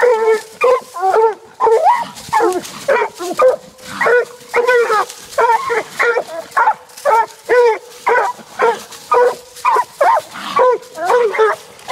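Two Treeing Walker coonhounds barking nonstop: a fast run of short, ringing hound barks, about two a second, the two dogs' barks sometimes overlapping.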